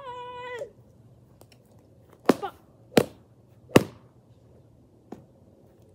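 Three sharp slaps of fists hitting a free-standing vinyl punching bag, about two-thirds of a second apart, with a fainter fourth hit a little later. A steady high-pitched held note ends about half a second in.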